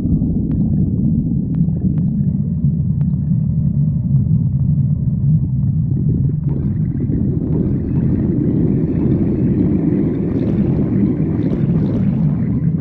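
A woman's stomach growling, picked up close to the belly: a continuous low rumble, with a longer, higher growl joining about halfway through and building toward the end.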